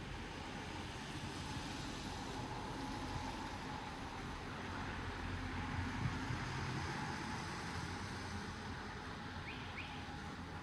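Steady hiss of light rain. It swells in the middle with a low rumble, then eases again.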